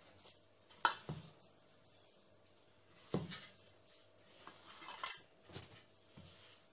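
Hand mixing crumbly ghee-and-flour dough in a stainless steel bowl, with a few sharp knocks and clinks against the metal bowl, the loudest about a second in.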